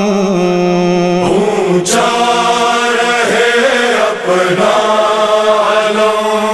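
Urdu noha, a Shia mourning lament, chanted by male voices in a slow melodic line. There is one sharp hit about two seconds in.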